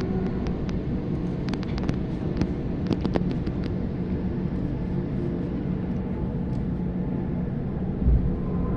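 Sydney Trains Waratah electric train heard from inside a carriage while running: a steady rumble of wheels on the rails with a faint motor hum. It is broken by a scatter of short clicks and rattles in the first few seconds and a low thump near the end.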